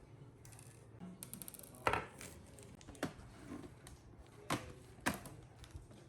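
Clicks and light knocks of hands and tools working on a laptop: four sharper knocks, the loudest just under two seconds in, with a quick run of small ticks just after a second in.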